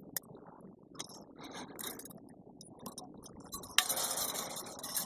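Steel fencing wire clicking and clinking as it is wrapped by hand into a knot, with a sudden knock about four seconds in followed by a louder scraping noise lasting about a second and a half.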